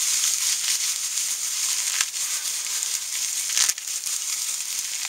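Dry tinder being crumbled and rubbed apart between the hands: a continuous dry crackling and crunching, with a sharp snap about two seconds in and a louder one a little later.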